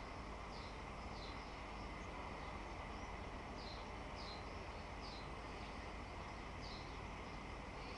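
A small bird chirping repeatedly in short, high, falling notes over steady low background noise.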